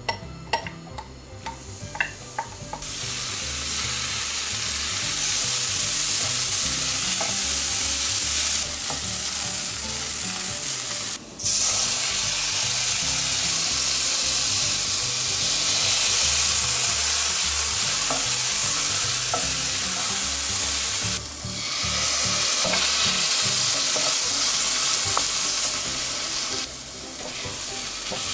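Diced radish kimchi frying in hot oil in a nonstick pan, a steady loud sizzle as it is stirred with a wooden spoon. A few clicks of the pieces and spoon against the pan come first, with the sizzle building about three seconds in; it briefly cuts out twice.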